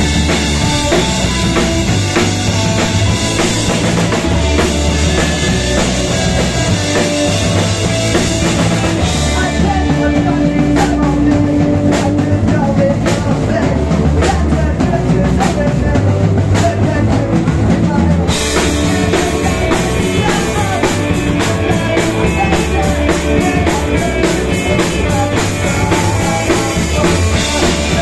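Live punk rock band playing loud: electric guitar, bass guitar and drum kit. About a third of the way in the cymbals drop out, leaving bass, guitar and separate drum hits, and the full band with cymbals comes back in about two-thirds of the way through.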